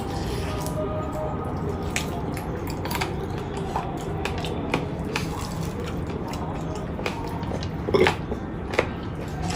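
A person chewing and eating close to the microphone, with irregular wet mouth clicks, a few louder ones about eight seconds in.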